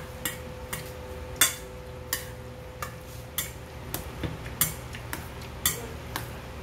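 Metal chopsticks clinking against a stainless steel bowl while mixing jjajangmyeon noodles in black bean sauce. About a dozen irregular clinks come at roughly two a second, and the loudest falls about one and a half seconds in.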